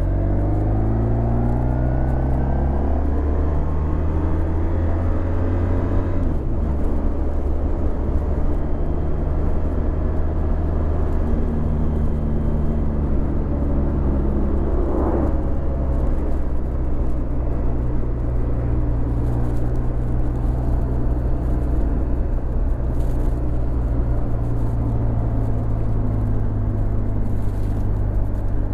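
Honda VFR1200X Crosstourer's V4 engine running through an Akrapovic titanium exhaust while riding. Its note rises under acceleration at first, drops sharply about six seconds in, then holds steady.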